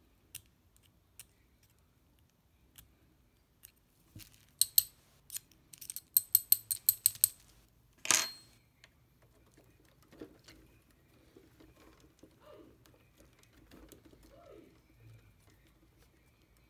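Small metal tools clicking and clinking against the metal chassis of a radio-control model truck during disassembly. A quick run of about seven sharp, ringing clicks comes around the middle, followed by a short scrape. After that there are faint handling sounds.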